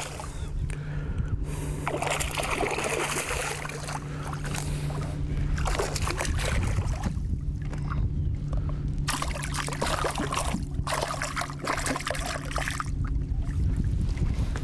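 Water splashing and sloshing around a fishing boat in irregular surges, over a steady low hum.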